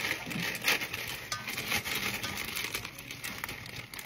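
Sour Patch Kids gummy candies shaken out of a crinkling plastic bag, pattering into a stainless steel bowl in a run of small, irregular clicks.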